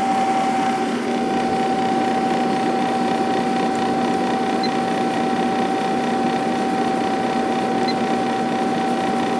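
1997 Sharp 8500 BTU window air conditioner running with its fan on medium speed: a steady rush of air from the blower, with a steady hum tone from the fan motor and compressor over it.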